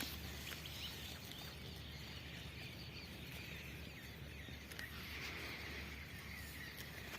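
Faint outdoor ambience with a few short, high chirps.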